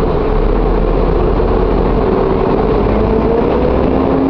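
Mercedes-Benz O-500M city bus's diesel engine running steadily.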